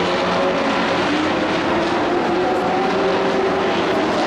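Several race trucks' engines running at speed around an oval, overlapping into a steady, loud engine noise whose pitches drift gently as the trucks move around the track.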